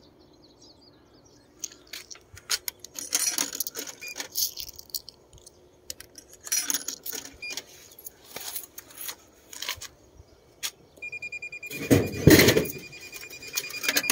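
Coins clinking and clicking as they are handled and fed into a drink vending machine, with a few short beeps. Near the end comes a louder rattling clatter from the machine, with a steady beep.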